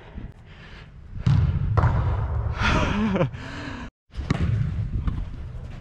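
Low rumbling movement and rubbing noise on a body-worn GoPro Hero 8's microphone during indoor soccer play, with a short shout about halfway through. The sound cuts out abruptly for a moment about four seconds in, then comes back as lighter knocking and rumble.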